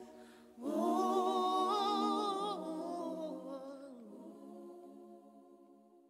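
Background music with singing voices: a held final chord with a wavering vibrato that fades out toward the end.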